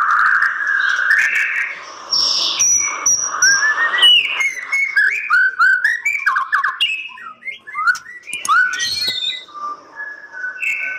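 White-rumped shama singing a varied, fast run of short rising whistles mixed with sharp clicks.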